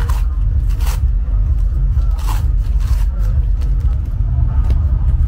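Cardboard mailer being torn and pulled open by hand: a handful of short tearing and rustling strokes over a loud, steady low rumble.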